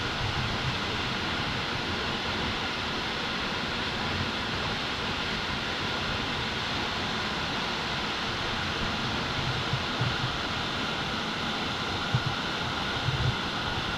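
Steady rushing of a waterfall, an even wall of water noise with no change in pitch. A few brief low bumps on the microphone come near the end.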